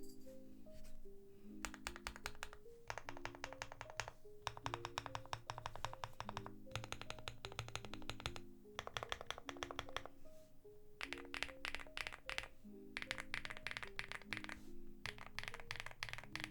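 Fast typing on Zuoce Macaron linear switches (factory-lubed POM stems, glass-fibre nylon bottom housings) in a Record Alice V2 with an FR4 plate, aluminium case, tape mod and foams, under PBT keycaps. The keys clack in quick bursts of a second or two with short pauses between them. Soft background music with low sustained notes plays underneath.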